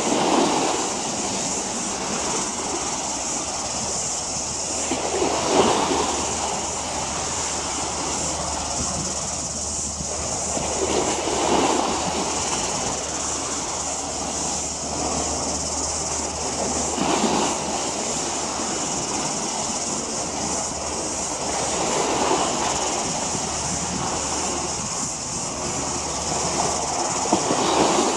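Harbour water washing against the waterfront, swelling about every five to six seconds, over a steady low hum.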